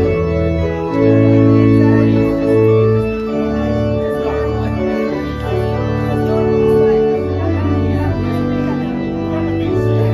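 Church organ playing the closing postlude: held chords over a deep bass line that moves to a new note every second or so.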